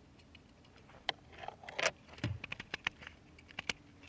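Plastic clicks and rattles from handling a 4Runner's removed climate control panel, starting about a second in, with one dull thump midway.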